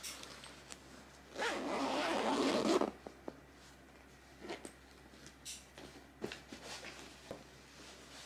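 Zipper on a fabric cushion cover being pulled closed in one pull of about a second and a half, starting about a second in and getting louder toward its end. Faint fabric rustles and light taps follow as the cushion is smoothed and handled.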